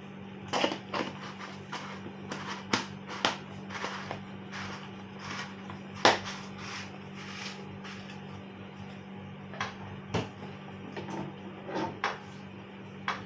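Irregular light clicks and knocks of kitchen utensils as sugar is spooned into a saucepan of boiling porridge, over a steady low hum.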